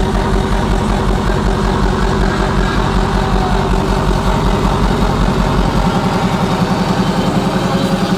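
Loud rawstyle hardstyle music: a heavily distorted, fast-buzzing bass synth line. The deepest bass drops out about six seconds in.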